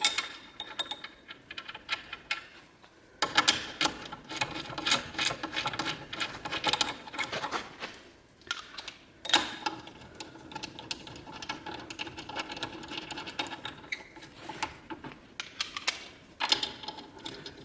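Rapid metallic clicking and clinking as the three bolts that hold an aluminium wheel spacer to a Smart Roadster's front hub are threaded in. It comes in two long runs, with a brief lull about three seconds in and another just after eight seconds.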